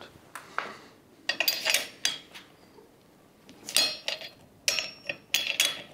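Metal hand tools clinking and rattling in several short, irregular bursts with a bright metallic ring: a socket wrench being picked up and worked onto the flywheel-to-crank bolts to seat them.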